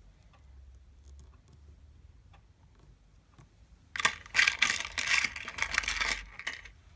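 Hands handling the small pieces of a putty monster kit: a few faint clicks, then about four seconds in a couple of seconds of louder clattering and rustling.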